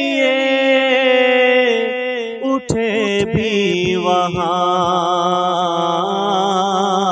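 A man singing a naat solo, drawing out long held notes with small melodic turns. There is a short break for breath about two and a half seconds in.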